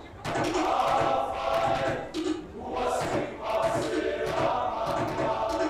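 A group of male voices singing a Samoan song together in held, choir-like notes, with a few sharp hits among them.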